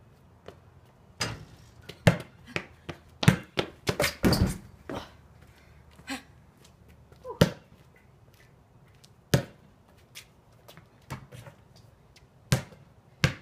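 A basketball being dribbled on a concrete driveway and shot at a portable hoop: a string of sharp thuds, thickly bunched in the first five seconds, then single hits spaced a second or more apart.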